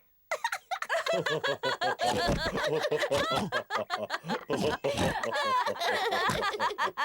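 Several cartoon voices laughing together, in overlapping bouts, starting just after a brief gap at the start.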